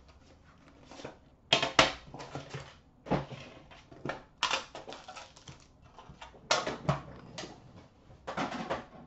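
Irregular bursts of tearing, rustling and clicking as the wrapping is torn off an Upper Deck Premier hockey card box and the box is handled and opened.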